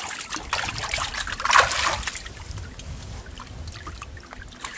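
Water splashing and dripping as a bamboo fish trap is lifted out of a river, with the loudest splash about a second and a half in, then softer trickling.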